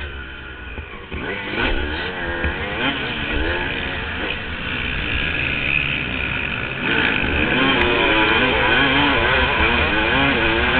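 Motocross dirt bike engine heard from the rider's onboard camera, revving up and down again and again as the throttle opens and closes. It gets louder about seven seconds in.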